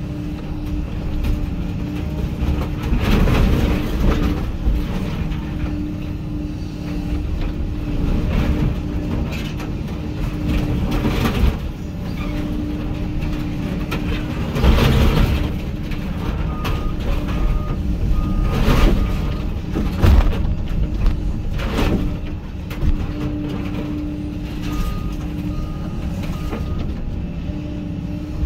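Hyundai HX220AL excavator's diesel engine and hydraulics working hard, heard from inside the cab, with loud crunching and scraping of steel grain-bin sheeting at intervals as the bucket and thumb crush it. Twice in the second half a short run of evenly spaced high warning beeps sounds.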